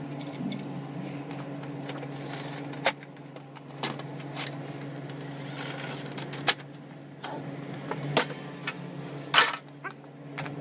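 Sharp plastic clicks and knocks, five or so spread irregularly with the loudest near the end, as Honda PCX 125 cowl panels and windscreen are handled and pressed into place. Under them runs a steady low hum.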